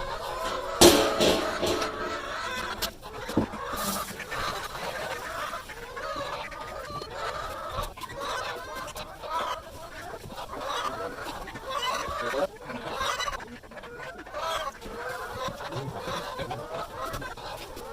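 A flock of chickens clucking and squawking over each other without a break while they are being fed, with a couple of sharp knocks near the start.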